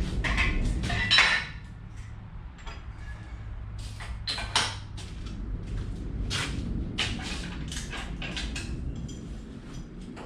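Steel engine hoist (cherry picker) being rolled on its casters across a concrete floor, with a string of short metal clinks and knocks; the loudest knock comes about a second in.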